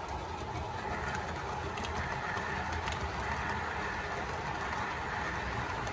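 OO gauge model train passing: a model Class 50 diesel locomotive hauling a rake of coaches runs by with a steady running sound that grows a little louder about a second in.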